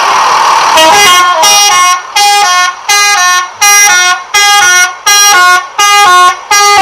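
Telolet musical air horn on a Pandawa 87 bus playing a quick melody. It starts about a second in as a string of loud, short horn blasts, about one and a half a second, stepping between several notes.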